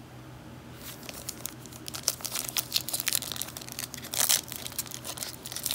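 Plastic cello-pack wrapper of a Panini Prizm trading-card pack crinkling and tearing as it is worked open by hand. The crackling starts about a second in, with a few louder rips about four seconds in.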